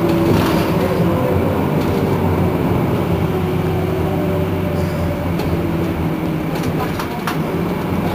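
Iveco Crealis city bus running, a steady drivetrain hum with a slowly wavering whine over it, and a few light clicks or rattles in the second half.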